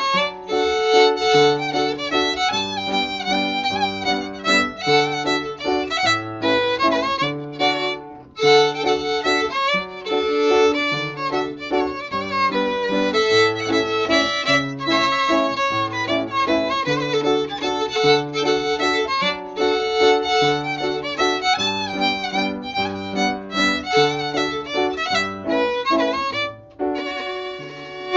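Fiddle and piano playing a Scandinavian hambo in triple time, the fiddle carrying the melody over the piano's steady bass-and-chord accompaniment. The tune ends near the end on a held final chord.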